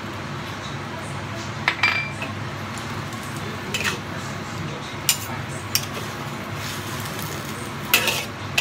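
Metal spatula and spoon scraping and clinking against a steel wok while tossing stir-fried water spinach, a few separate sharp clinks over a steady low hum.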